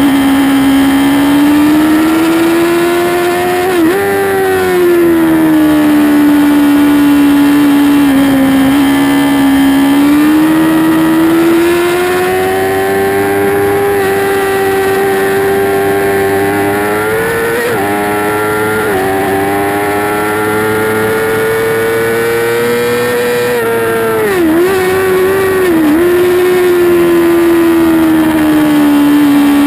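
2008 Yamaha YZF-R6's inline-four engine at racing speed, heard onboard: a high, loud engine note that slowly rises and falls with the throttle. There are a few brief sharp dips in pitch, two near the middle and two about three-quarters through.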